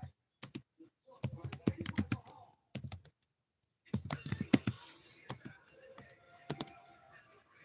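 Typing on a computer keyboard: runs of quick keystroke clicks, with a short pause a little after three seconds in.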